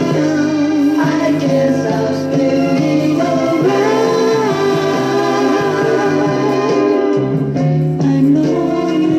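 A 45 rpm vinyl single playing on a turntable: several voices singing together in long held notes over a backing band.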